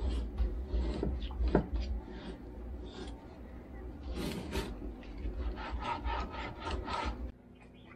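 Chef's knife cutting raw chicken breast into chunks on a thin plastic cutting mat: repeated strokes of the blade through the meat and against the mat at an uneven pace, cutting off suddenly near the end.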